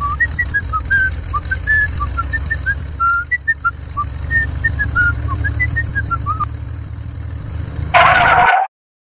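Steady low engine rumble of the miniature tractor running, with short high chirps scattered over it. About eight seconds in comes a brief loud noisy burst, and then the sound cuts off.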